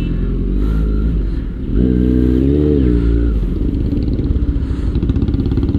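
Kawasaki Z900's inline-four engine running at low speed, with a brief rev about two seconds in that rises and then falls in pitch.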